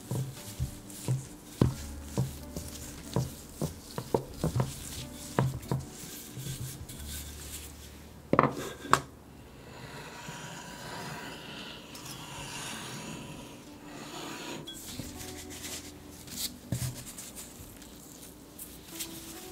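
A wooden rolling pin rolling and knocking on tart dough on a wooden board, with many sharp knocks in the first several seconds and two loud knocks a little later. After that, a knife is drawn through the dough along a ruler with a soft scraping, followed by a few light clicks.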